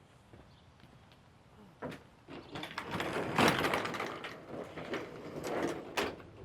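Handling noise: a knock about two seconds in, then several seconds of scraping and clattering, ending with a sharp knock near the end.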